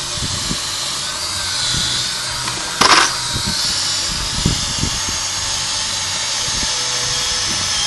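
Electric drill running steadily, its bit boring into rusty steel while it is pressed down as hard as possible. There is a brief knock about three seconds in.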